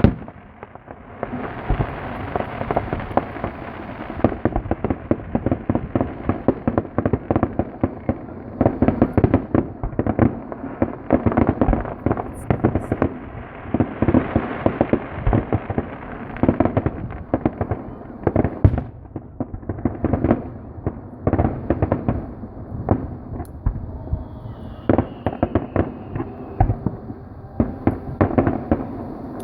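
A fireworks display with dense, rapid bangs and crackles going off continuously. A falling whistle comes in about 25 seconds in.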